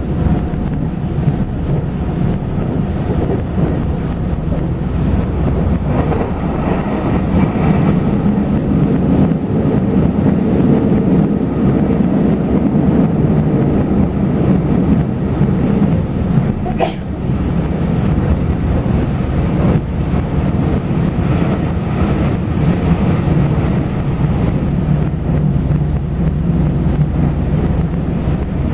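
Passenger train running, heard from inside the carriage: a steady rumble of wheels on rail, with one sharp click just past the middle.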